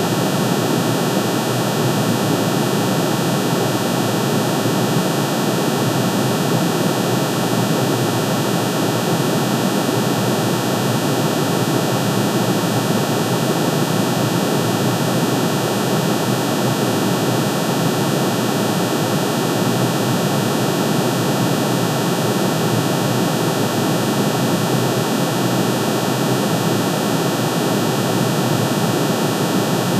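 Synthesized sound of aluminium's atomic emission spectrum: many sine tones, one for each spectral line, pitch-shifted into hearing range and summed into a steady, dense drone with a hiss-like upper band.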